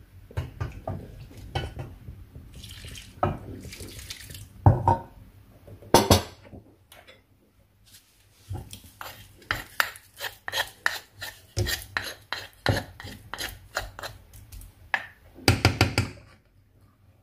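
A wooden stirring stick and a metal spoon knocking and scraping against a nonstick saucepan while they work a stiff porridge dough (ga'at). Water is poured into the pot from a glass jug about three seconds in. Later comes a fast run of knocks, about three a second, through most of the second half.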